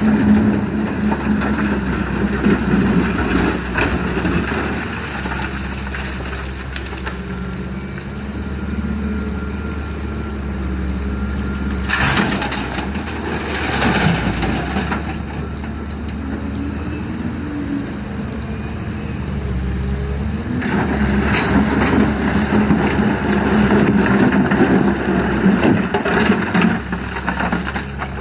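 An excavator loading river rock and gravel into a dump truck. A heavy diesel engine runs steadily throughout, and louder stretches of rattling, crashing material come at the start, about twelve seconds in, and again from about twenty-one seconds until near the end.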